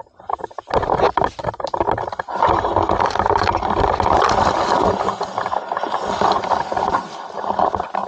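Leaves and twigs brushing and scraping against the camera as it is pushed through dense bush foliage: a loud, continuous crackling rustle that starts about a second in.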